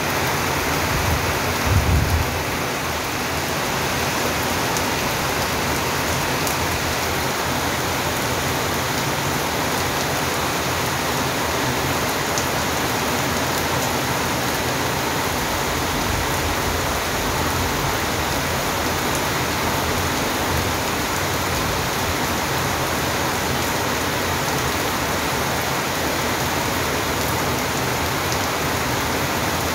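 Steady rain falling, an even hiss with no breaks, and a brief low rumble about two seconds in.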